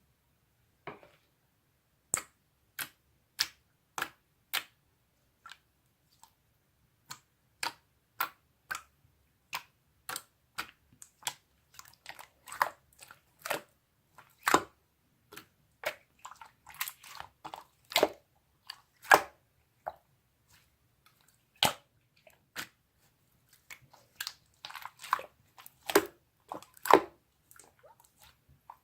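Mixed slime being pressed and stretched by hand, giving sharp wet clicks and pops from trapped air. They are sparse at first, come thicker from about ten seconds in, pause briefly past the twenty-second mark, then pick up again.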